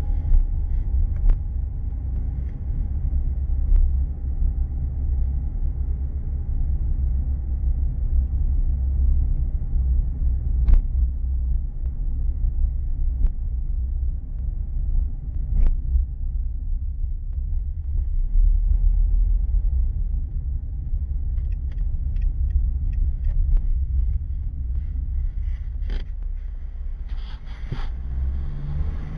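Car cabin rumble from a car driving slowly, picked up by a dashcam's built-in microphone: a steady low drone of engine and tyres on the road, with a few sharp clicks and a short clatter near the end.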